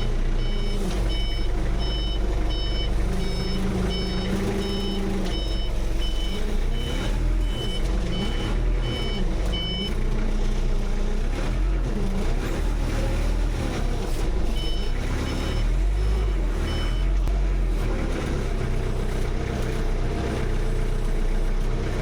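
Forklift engine running with a low rumble while its reversing alarm beeps about twice a second for the first ten seconds, then again for a few seconds about fifteen seconds in.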